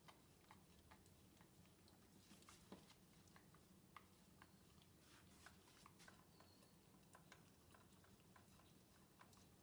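Very faint, irregular wet clicks and smacks of a schnoodle licking and chewing food scraps off plates in an open dishwasher rack.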